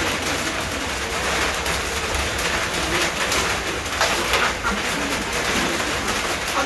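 A bird cooing, over a steady background hiss.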